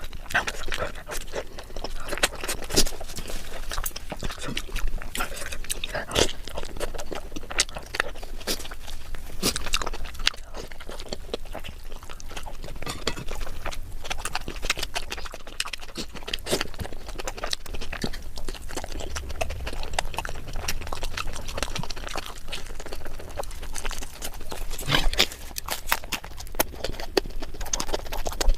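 Close-miked chewing and mouth sounds while eating: an irregular run of many short wet clicks and smacks.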